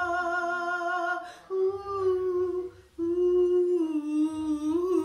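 A woman singing unaccompanied, holding three long notes with short breaths between them, the last one rising and wavering near the end.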